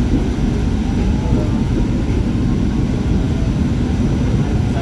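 R44 subway car of the Staten Island Railway running along the track: a steady low rumble of wheels and running gear.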